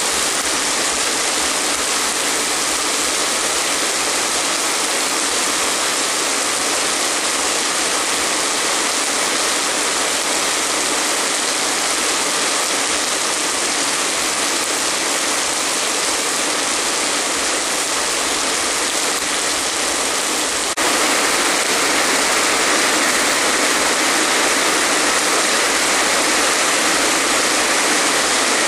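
Heavy tropical rain pouring, a dense steady rush of water. About two-thirds of the way through it suddenly gets a little louder.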